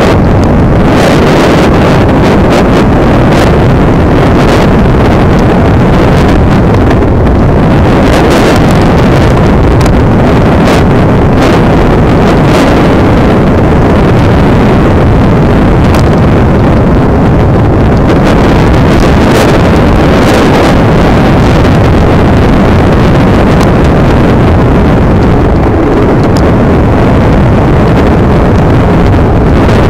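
Wind buffeting the microphone on a moving electric scooter: a loud, steady rush with short crackles now and then, and no motor tone standing out above it.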